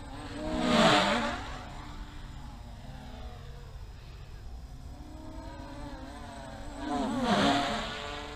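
MJX Bugs 3 brushless quadcopter's motors and propellers whining in flight, with two fast close passes, about a second in and again near the end. Each pass swells loud and drops in pitch as the quad goes by.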